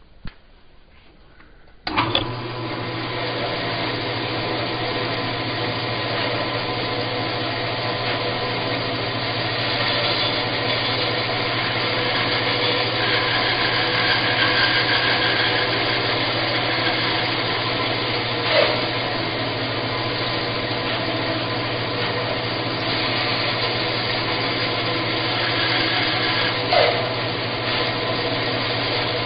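Bandsaw switched on about two seconds in and running steadily with a low motor hum while cutting a canary wood blank, with two brief knocks later on.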